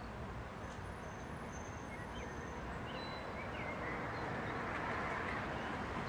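Steady outdoor background rumble, a little louder toward the end, with a few faint, short, high chirps from small birds.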